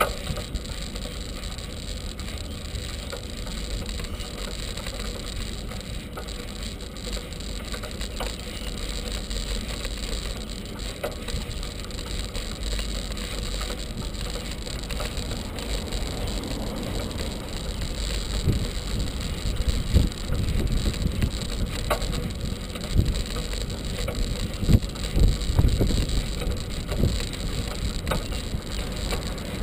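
A bicycle being ridden, picked up by a camera mounted on the bike: a steady low wind rumble on the microphone and tyre noise. Knocks and rattles from bumps come more often in the second half.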